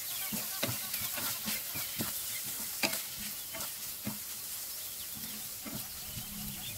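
Wooden spatula stirring and scraping a shredded cabbage-and-vegetable filling around a nonstick frying pan, over a soft sizzle. The scrapes come quickly for the first few seconds, then thin out.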